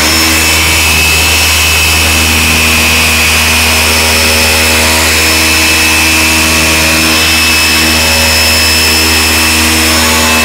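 Gear-driven dual-action polisher running steadily with its foam pad pressed hard against plastic. It makes a constant high whine over a low hum, with no pad stalling.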